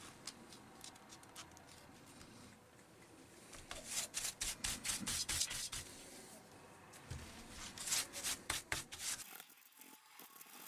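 Cotton swab scrubbing old thermal paste off a laptop motherboard chip: quick rubbing strokes, about five a second, faint at first and then louder in two bouts, about four and about eight seconds in.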